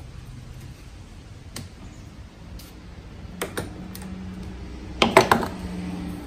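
Sharp metallic clicks and clinks of a 10mm socket wrench working a battery terminal nut loose, scattered at first, with a quick cluster of loud clicks about five seconds in. A faint steady low hum starts about halfway through.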